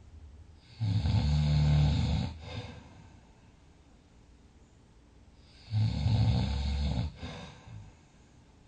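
A sleeping person snoring heavily: two long snores about five seconds apart, each lasting about a second and a half and trailing off, with quiet breathing between them.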